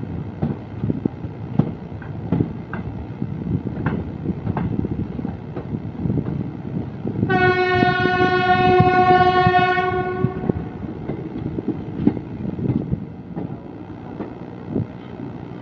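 Passenger train running, its wheels clicking over rail joints and points. About seven seconds in, the locomotive horn sounds one long steady blast lasting about three seconds.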